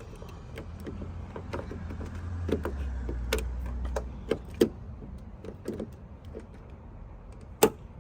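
Sharp plastic clicks and knocks from a car's exterior door handle and latch parts being worked into place, the loudest two near the middle and near the end. A low hum runs under them for the first half, dropping in pitch partway.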